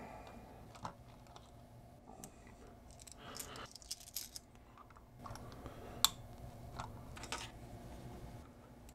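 Faint scattered clicks, taps and short scrapes of small hand tools working on a computer mouse's plastic shell, prying at its underside, with a sharper click about six seconds in.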